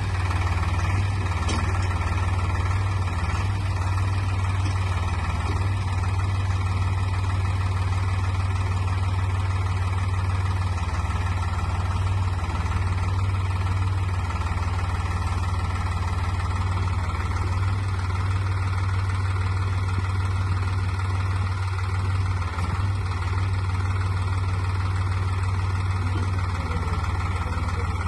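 Solis tractor's diesel engine running steadily, a constant low hum with no change in speed.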